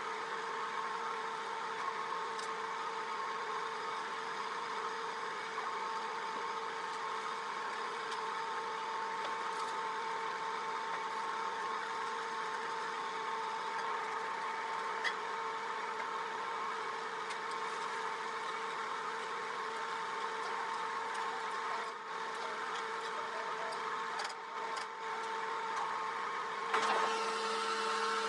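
Steady hum of a small electric motor with a few fixed tones over a light hiss. Near the end it grows louder and a lower tone joins in.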